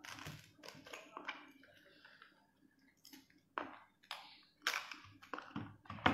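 Cooked king crab leg shell cracking and snipping as it is cut open with kitchen scissors, in a string of separate sharp crunches.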